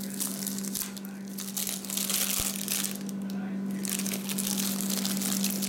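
Clear plastic wax-melt wrapper crinkling in irregular bursts as it is handled and opened, over a steady low hum.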